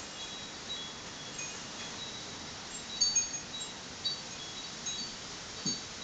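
Light, high chime notes tinkling irregularly at a few fixed pitches, a small cluster a little after the middle being the loudest.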